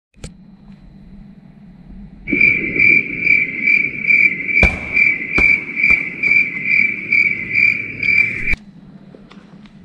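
Cricket chirping, a steady high pulsing chirp about three times a second that starts and cuts off abruptly, like an added sound effect. In the middle come a few sharp thuds from the inflatable beach ball bouncing on the pool-side tiles.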